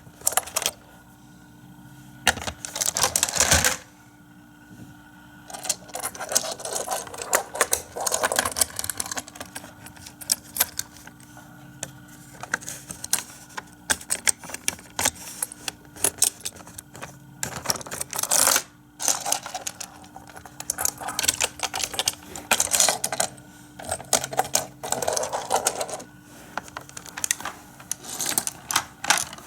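Micro Machines toy cars and plastic playset parts being handled, giving irregular small hard clicks and clatters with louder bursts now and then. A faint steady hum runs underneath.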